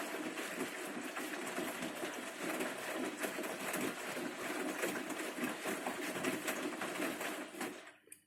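Bosch Series 6 front-loading washing machine washing a load: the drum turning the wet clothes with a steady run of irregular clattering and sloshing. It stops abruptly near the end.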